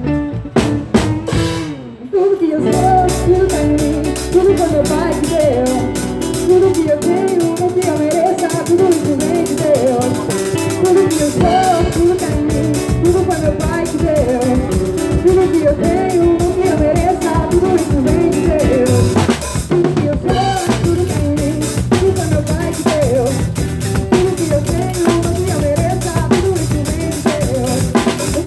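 Live pagode band playing, with a drum kit keeping a busy beat under bass and a moving melody. The music stops briefly about two seconds in, and breaks again for a moment about two-thirds of the way through.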